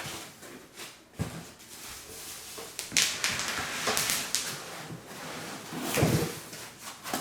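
Packaging being handled as a chair seat is pulled from its box: rustling and scraping of foam and cardboard, with several knocks and a heavier thump near the end.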